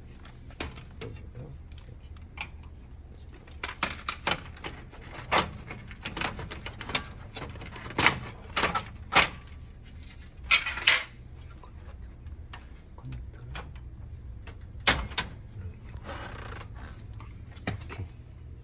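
Irregular clicks, knocks and short scrapes of plastic and metal copier panels and parts being handled and pulled out of a Canon imageRUNNER office copier, over a steady low hum.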